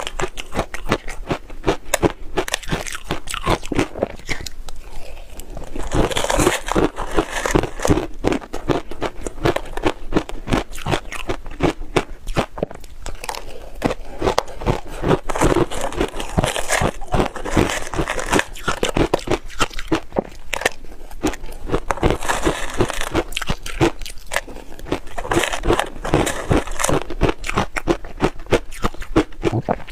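Close-miked crunching and chewing of shaved ice heavily coated in purple sweet potato powder: a dense, continuous run of crisp crunches, many to the second.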